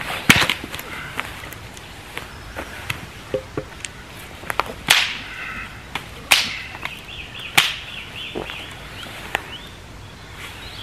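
Dry dead sticks being snapped for firewood: several sharp cracks a second or more apart, the loudest near the start and again about five, six and seven and a half seconds in.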